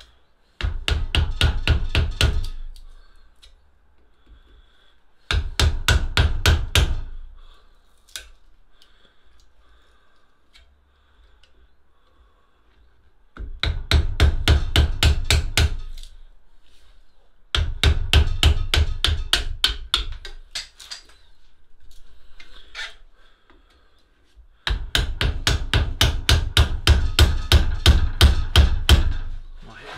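Hammer rapidly striking a wooden-handled chisel held against the handle of a machete clamped in a steel vise, driving at the old handle to get it off the tang. The blows come in five runs of quick strikes, several a second, with short pauses between.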